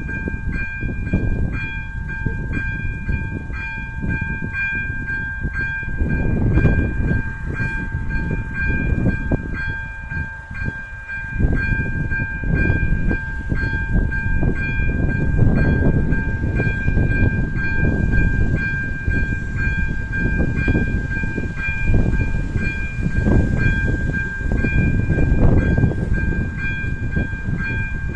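Electronic bell of an AŽD 97 level-crossing warning system ringing with a rapid, even, high-pitched ding, the crossing's warning to road traffic that a train is coming. A low rumble runs underneath and grows louder from about halfway.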